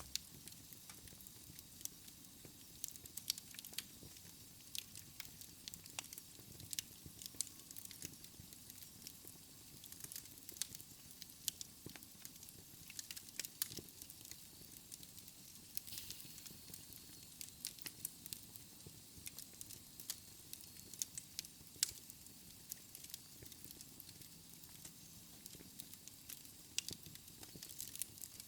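Wood fire in a fireplace crackling, with frequent irregular sharp pops and snaps over a soft steady hiss of the flames.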